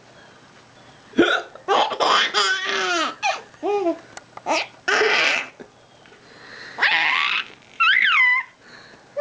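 A young child laughing in repeated bursts of high giggles and squeals, with a sudden short hiccup about a second in.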